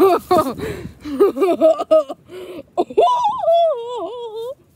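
Boys' laughter in short choppy bursts while they wrestle, then one long, wavering, high-pitched strained whine lasting about a second and a half near the end.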